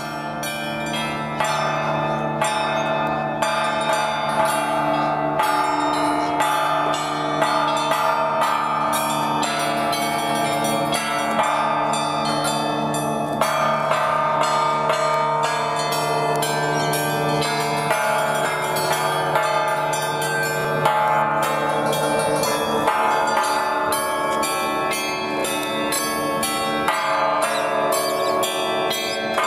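The Federation Bells, a field of upturned bells on poles, are struck in quick succession to play a tune. Many strikes follow each other every second, their ringing tones overlapping.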